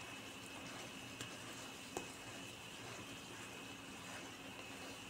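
Faint, steady sizzle of oil under a roti coated with egg frying in a nonstick pan, with a couple of light clicks, the clearer one about two seconds in.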